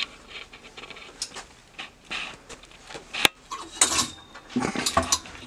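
Scattered clicks and rustles of a wooden clothes hanger with a metal clip being handled, with one sharp click about three seconds in and a cluster of short knocks and rustles near the end.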